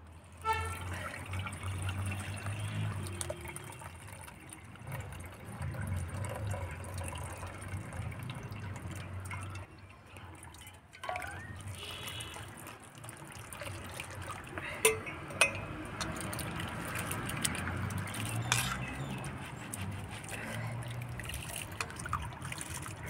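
Water sloshing, trickling and dripping as soaked split moong dal is rubbed by hand in a pan of water to loosen its skins, and the water is strained off through a plastic strainer into a metal bowl. Two sharp knocks come about fifteen seconds in.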